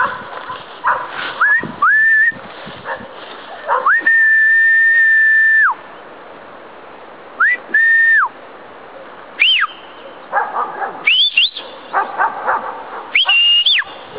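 A person whistling a series of sharp whistles, each sliding up quickly to its note. Most are short, in pairs, but one is held steady for nearly two seconds about four seconds in, and the later ones go higher in pitch.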